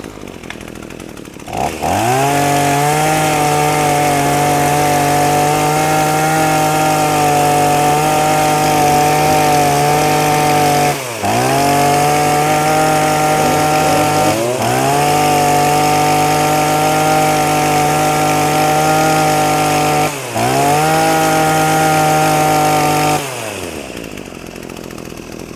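Maruyama 26cc two-stroke brush cutter engine being demonstrated. It idles at first, revs up to high speed about two seconds in and holds there, dips briefly three times, then drops back to idle near the end.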